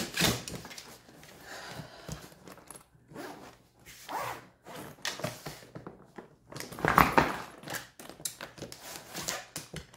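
Hardshell spinner suitcase being handled and zipped: short zipper rasps mixed with scattered knocks and bumps of the case, the loudest a little after seven seconds.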